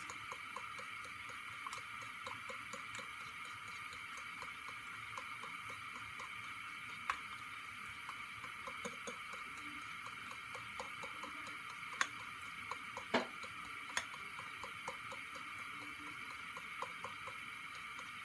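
A fork beating eggs in a ceramic bowl: a faint run of quick, light clicks as the tines strike the bowl, with a few louder clinks around the middle, over a steady hiss.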